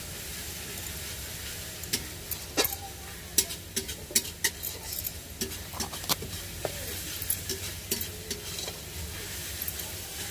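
Food sizzling as it fries in a pan and is stirred with a metal spoon, which clinks and scrapes against the pan in quick, irregular knocks for most of the time.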